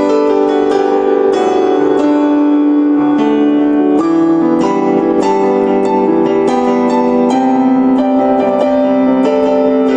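Piano playing the slow instrumental introduction to a worship song: held chords with single notes picked out above them, about two a second, without singing.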